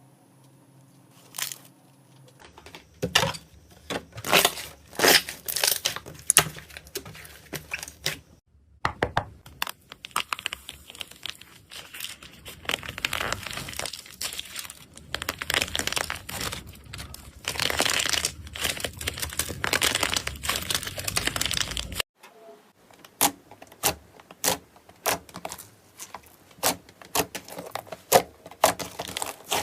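Slime being squeezed and stretched by hand, giving crackling and popping clicks. The crackling runs dense and continuous through the middle, stops abruptly about two-thirds of the way in, then comes back as separate sharp clicks.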